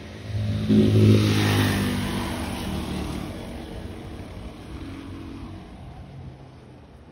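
A motor vehicle passing close by on the street: its engine comes up quickly, is loudest about a second in, then fades away steadily as it drives off.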